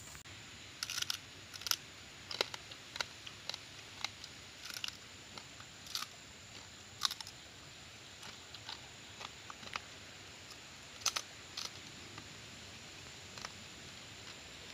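Cooked river crab shell cracking and crunching as it is broken apart by hand and chewed: irregular sharp cracks, sometimes in quick clusters, over a steady faint hiss.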